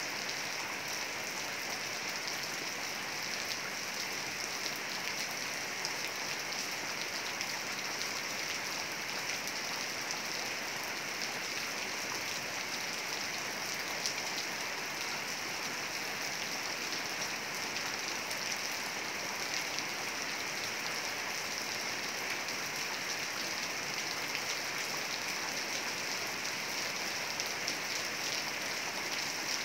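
Heavy rain falling steadily: a dense, even hiss of countless drops that holds the same level throughout.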